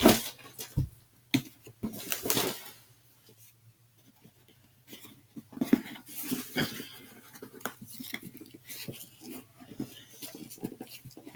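Irregular handling noises: light taps, clicks and rustles as a new sneaker and its packing insert are handled and pulled about. There is a quiet pause of a couple of seconds early on.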